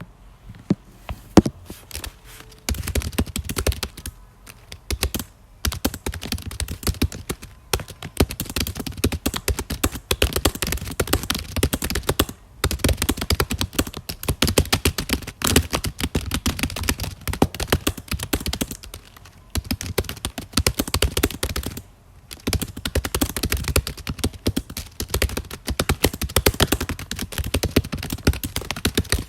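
Typing on a computer keyboard: rapid key clicks in runs of several seconds, broken by brief pauses.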